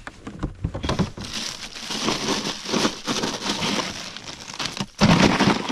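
A plastic bag of ice crinkling and crackling as a hand rummages in a cooler to put a freshly caught crappie on ice, with a louder thump near the end.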